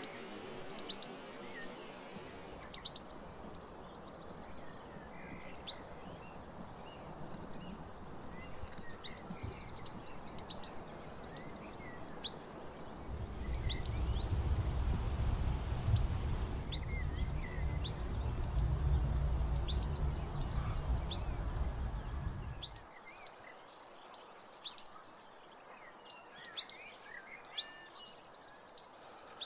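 Wild birds chirping and calling over outdoor background noise. A steady low rumble rises about halfway through, runs for about ten seconds as the loudest sound, then drops away.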